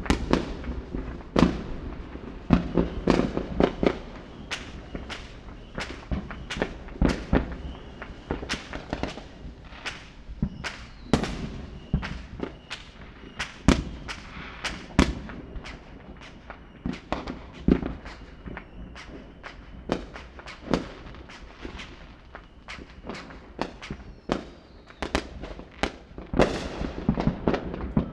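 Fireworks display: many sharp bangs and crackles of bursting shells, several a second at uneven spacing, each with a short echoing tail, over a continuous low rumble. The bursts come thickest near the start and again near the end.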